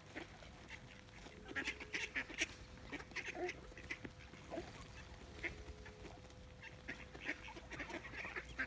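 A flock of wild ducks calling: many short, overlapping quacks coming in irregular bunches.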